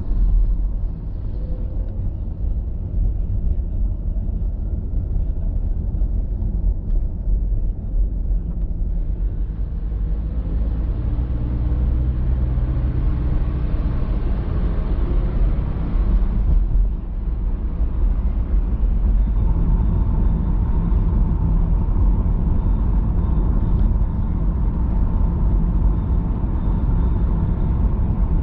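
A car driving on a city road, heard from inside the cabin: a steady low rumble of engine and tyres. A wash of extra road noise comes in about a third of the way through and fades a little past the middle, while a truck runs alongside.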